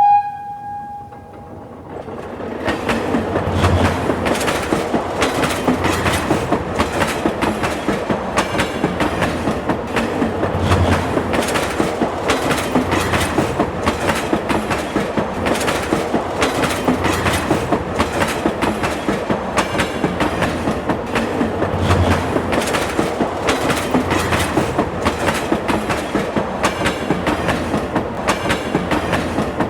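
Train running along the track with a rapid, even clickety-clack of wheels over rail joints over a steady rumble. It builds up about two seconds in and eases off near the end. A brief high tone with overtones is dying away at the very start.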